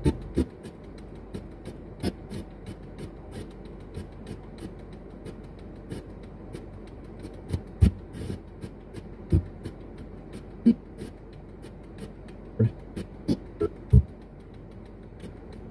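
Car stereo radio being swept through the stations: a steady run of short clicks and snatches of static, about three or four a second, with several louder pops in the second half. Near the end comes a fragment that is taken for a spirit voice saying "you need".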